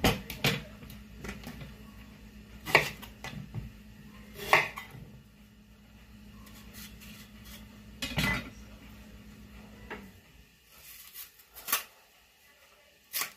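Kitchen knife cutting green plantain and knocking on a plastic cutting board: about six sharp knocks and clicks, spaced a second or more apart. A low steady hum runs underneath and stops about ten seconds in.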